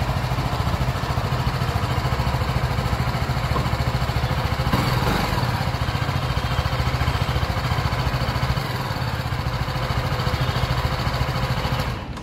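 BMW G 310 GS single-cylinder engine idling steadily, its revs settled between 1,000 and 2,000 rpm after a cold-start warm-up and running smoothly. The sound swells briefly about five seconds in.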